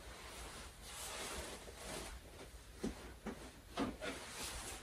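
Faint rustling from a person moving about, with a few soft knocks in the second half.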